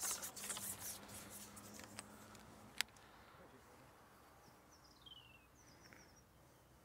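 Rustling as a fishing pole and tackle are handled, with one sharp click a little under three seconds in. Then a faint bird call: a short falling whistle and a few high chirps, about five seconds in.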